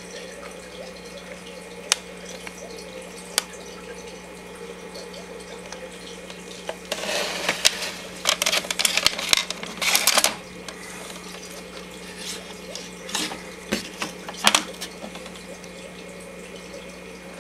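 Plastic Super 8 film cartridge handled and pushed into the loading slot of a Technicolor Showcase Magnetic 2000MC projector, scraping and clattering for a few seconds midway, with scattered sharp clicks before and after. A steady low hum and hiss lies underneath.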